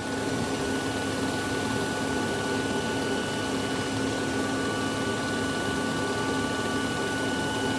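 Steady machine hum: an even rushing noise with a few constant tones, with no pulses or clicks.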